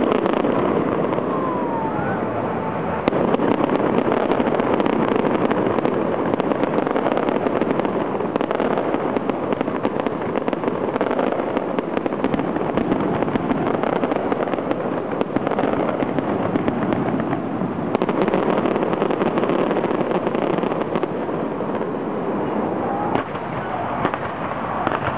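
Fireworks display: a continuous barrage of aerial shell bursts and crackle with no real gaps between blasts, growing louder about three seconds in.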